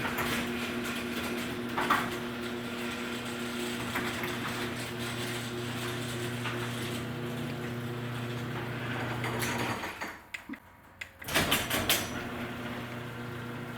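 Garage door opener motor running with a steady hum as the door travels. It stops about ten seconds in, then starts again with a few sharp clicks.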